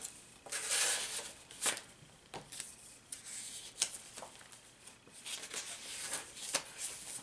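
Paper and cardstock rustling and crackling as the pages, tags and inserts of a handmade junk journal are handled and turned. There is a louder rustle about a second in, and several sharp taps and flicks of paper follow.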